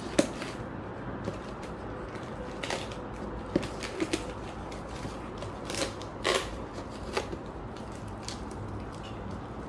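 Packaging being handled as a potted plant is lifted out of its shipping box: scattered crinkling and crackling with sharp clicks, loudest just after the start and again around the middle.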